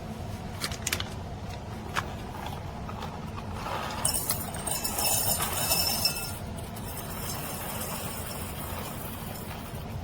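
Hard parts of a kitchen grinder being handled: a few sharp clicks, then a couple of seconds of clinking and rattling about four seconds in, over a steady low hum.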